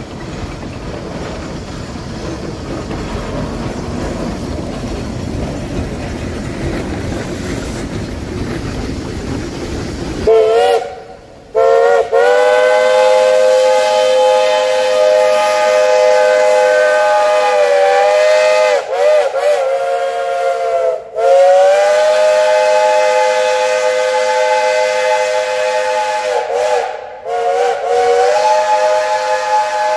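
A Shay geared steam locomotive's whistle sounding several notes at once in long blasts. The blasts start about ten seconds in, with short breaks and brief sags in pitch as the valve is worked. Before that, a rising rush of steady noise from the locomotive.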